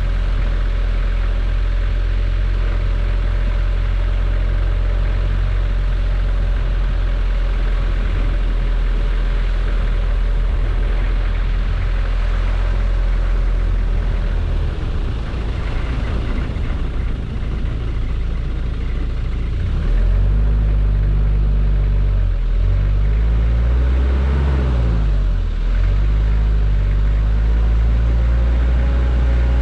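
Nissan King Cab pickup's 2.5-litre diesel engine running while the truck is driven slowly. The engine note shifts about halfway through. From about twenty seconds in it gets a little louder and rises and falls for several seconds before settling again.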